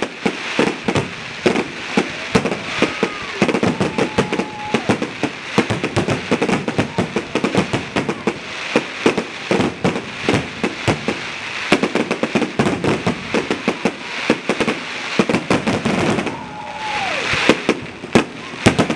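Fireworks display: a dense, rapid run of crackling pops and bangs, with a brief hissing swell near the end.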